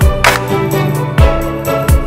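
Background music with a steady beat: kick drums about every 0.8 seconds, snare hits and sustained pitched notes, in a rhythm-and-blues style.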